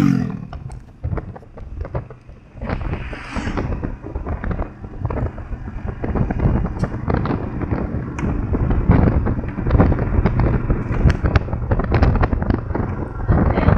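Wind buffeting a microphone on a moving motorcycle, a dense irregular crackling and thumping, with the engine running steadily underneath.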